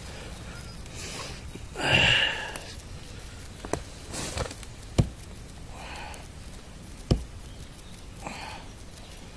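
A knife blade jabbed into a tree trunk, landing as three sharp knocks a second or two apart, between heavy breaths of effort, the loudest a short puff about two seconds in.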